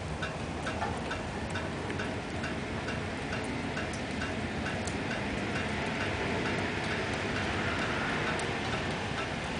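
Regular light ticking, about two and a half ticks a second, over a steady hiss. The ticking fades in the second half as the hiss grows louder.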